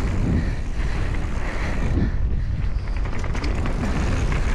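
Mountain bike rolling down a dirt forest trail: a steady low rumble of wind buffeting the camera microphone along with tyre noise, and a few light rattles from the bike about three seconds in.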